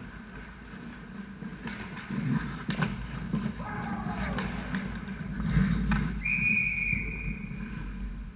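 Ice hockey rink play: sharp clacks of sticks and skates over a low rink rumble, then a referee's whistle blows about six seconds in, one steady shrill blast held for about two seconds, signalling a stoppage in play.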